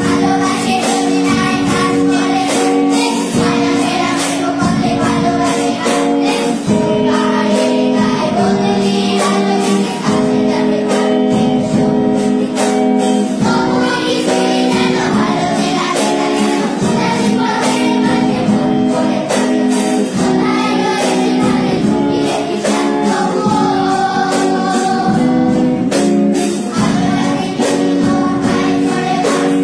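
A group of children singing a Bengali song together in unison, accompanied by a strummed guitar.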